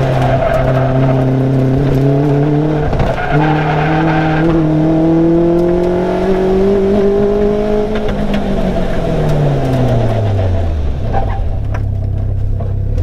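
Caterham Superlight's engine heard from the open cockpit under steady acceleration, its pitch climbing slowly for about eight seconds. It then falls away steadily over the next few seconds, with wind and road noise throughout.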